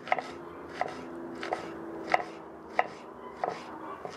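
Kitchen knife slicing an onion on a wooden cutting board: a slow, even series of sharp knocks as the blade goes through and hits the board, about one cut every two-thirds of a second.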